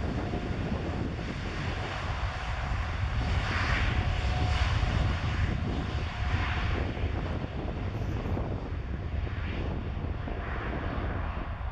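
Boeing 747-8's four GEnx turbofan engines running as the jumbo jet rolls along the runway: a steady low rumble with a rushing jet hiss, loudest about four to five seconds in and easing slightly as it moves away.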